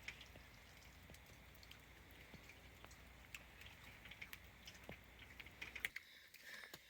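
Near silence with faint, irregular small clicks and crackles over a low hum.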